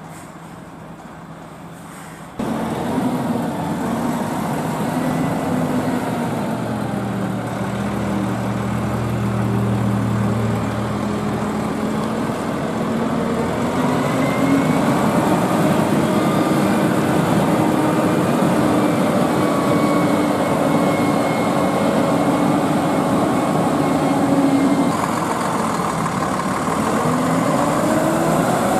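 Diesel engine of a heavy Volvo FH tractor unit pulling a heavily loaded low trailer. The engine runs steadily, its pitch sliding down and rising again as the truck moves slowly with the load. A quieter stretch at the start ends suddenly about two seconds in, when the engine comes in much louder.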